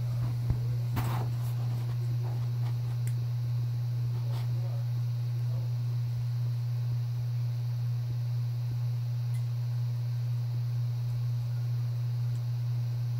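A steady low hum, with a few faint clicks and rustles in the first two seconds.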